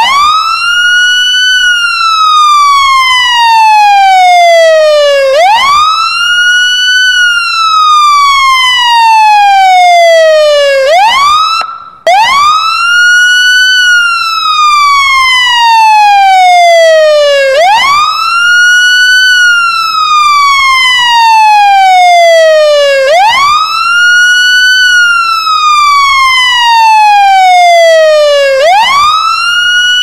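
Fire truck siren wailing on its own, with no engine or traffic heard. Each cycle sweeps up quickly in about a second, then falls slowly for about four, repeating about every five and a half seconds, about five times in all. It breaks off briefly about twelve seconds in and starts up again.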